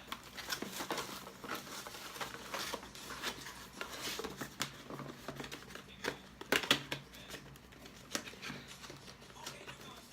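Hands handling unboxed camera gear and packaging: irregular small clicks, taps and rustling, with a louder cluster of clicks about two-thirds of the way through.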